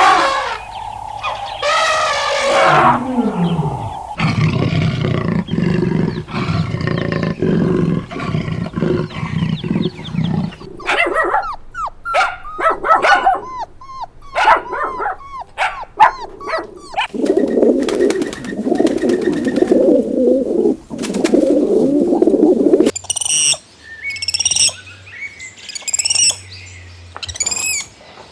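A run of different animal calls, one kind after another, changing every few seconds, including low roaring stretches; the last few seconds are high, rapid bird chirps.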